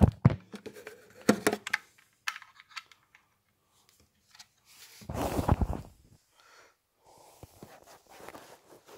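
Handling noises of a micro-USB cable being fumbled into a USB video grabber's port: sharp plastic clicks and knocks in the first two seconds, a louder scraping rustle about five seconds in, then faint fiddling.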